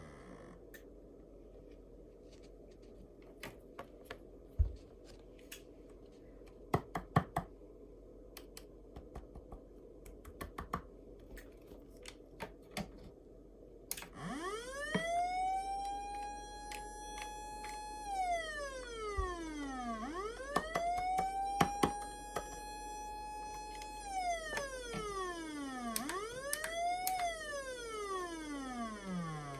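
Osaka Siren MK-11 electronic siren sounding through a newly connected speaker: after a stretch of scattered clicks, about halfway in it starts three wails, each rising quickly, holding a high pitch for a couple of seconds, then falling away, the last one shorter and still falling at the end.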